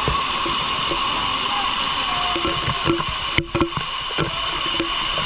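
Steady rush of waterfall water, with snatches of people's voices over it. The sound drops out briefly about three and a half seconds in.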